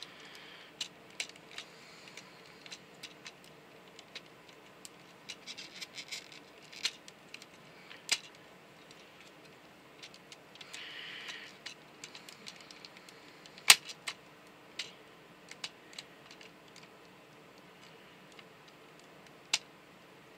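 Hard plastic parts of a Transformers figure clicking, tapping and scraping as they are worked by hand, with the tabs being pushed toward their cutouts. Irregular clicks throughout, one much sharper a little past the middle, and two brief scraping rustles.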